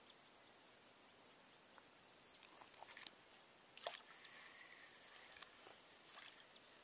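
Near silence with faint, close handling sounds as a small freshly caught wader fish is taken off the hook: a few light clicks, a sharper click about four seconds in, then a couple of seconds of soft rustling.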